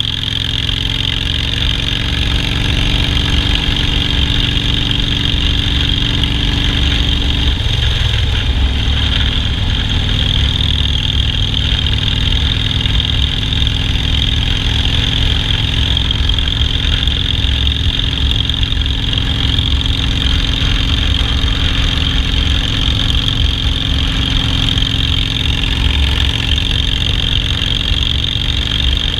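Harley-Davidson Softail Standard's V-twin engine running steadily, its pitch shifting once about eight seconds in and then holding steady again.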